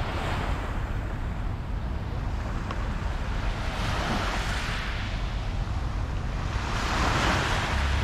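Small waves washing onto a sandy beach, the surf swelling about halfway through and again near the end, with wind rumbling on the microphone.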